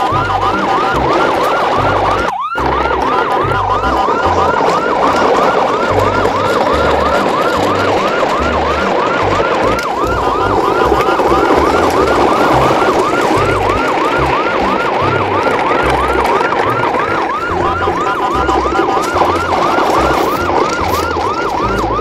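Electronic yelp siren wailing in quick rising sweeps, about three a second, over background music with a bass line. There is a brief dropout about two seconds in.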